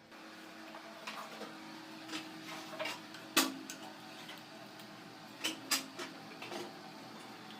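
A string of irregular light clicks and taps, loudest a little past three seconds in, with a close pair of taps later, over a faint steady hum.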